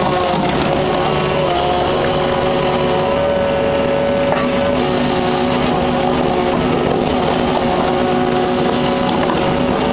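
Kubota KX61-3 mini excavator's diesel engine running steadily, with several steady whining tones over the engine's rumble.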